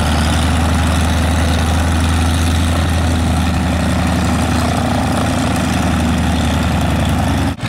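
Engine of an ultralight replica Caudron G.III biplane idling steadily at a constant pitch. It breaks off sharply near the end.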